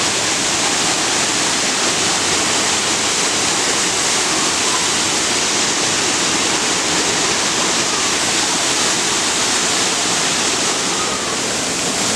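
Large waterfall pouring, a loud steady rush of falling water heard close by.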